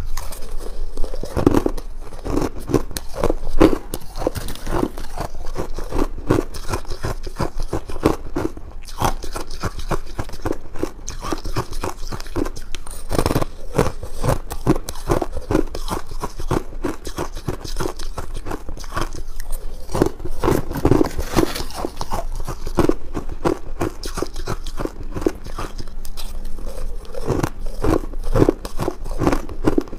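Crunching and chewing of freezer frost ice mixed with buckwheat, a dense, unbroken run of crisp crunches as each mouthful is bitten and ground.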